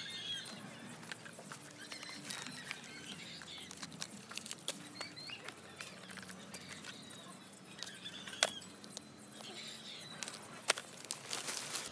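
Cardboard phone boxes and a phone being handled and opened: scattered small clicks and knocks of cardboard, plastic and glass, with faint chirps in the background. The two sharpest knocks come a little past the middle and near the end.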